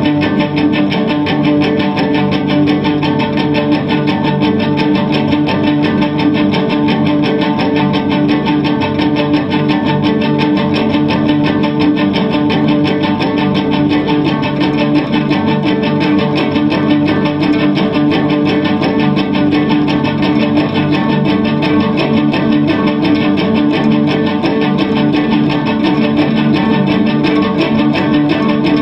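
Amplified cello with its strings plucked or tapped in a rapid, unbroken flurry over steady sustained tones. The dense texture holds at one level without a break.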